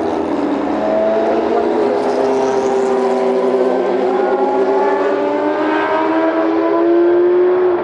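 Race car engines running at high revs on a circuit, with the Mazda 787B's four-rotor rotary engine among them. Several steady engine notes overlap and rise slightly, growing loudest just before the end.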